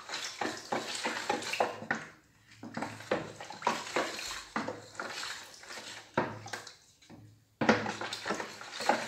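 Warm water with sugar and yeast sloshing in a bowl as it is stirred briskly, the utensil clicking against the side, with two short pauses in the stirring.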